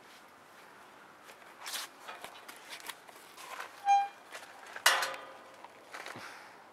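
Footsteps and camera-handling knocks as the camera is carried along, with a short clear high note about four seconds in and a brief harsher pitched sound about a second later.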